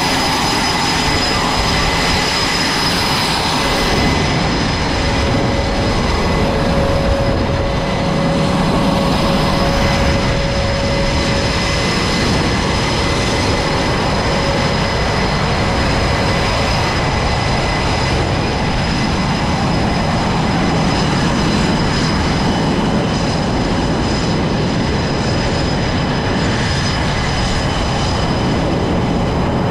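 Jet engines running on an aircraft carrier flight deck: a loud, steady roar with a high turbine whine over it.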